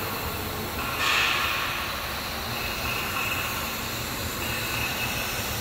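Steady running noise of CNC router machinery: a constant hiss with a high whine that comes and goes, and a brief louder rush of hiss about a second in.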